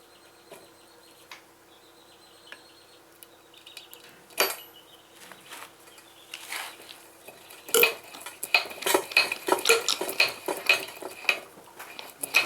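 Metal objects clinking and clattering as they are handled: a few light clicks and a knock, then from about 8 seconds in a busy run of sharp clinks several times a second.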